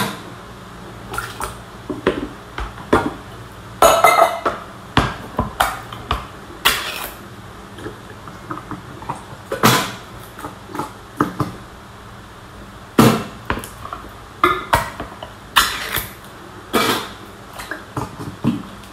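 Tin cans of whole peeled tomatoes handled and emptied into a stainless steel bowl: irregular clinks and knocks of metal on metal and on the counter, a few ringing briefly.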